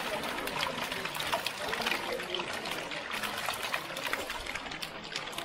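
Water trickling and splashing in a concrete fish tank crowded with young catfish, a steady running-water sound with many small splashes.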